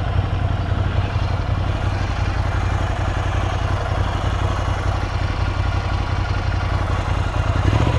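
Motorcycle engine running steadily at low revs as the bike rolls slowly, a constant low hum.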